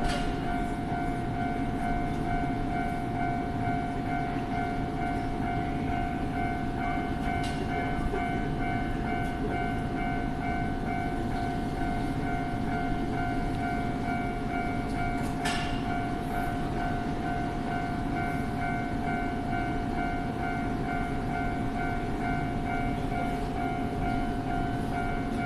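Japanese level-crossing warning bell ringing over and over in a steady, even rhythm, over the continuous low rumble of a train running past on the tracks. Two brief sharp clicks sound, about a third and about two thirds of the way through.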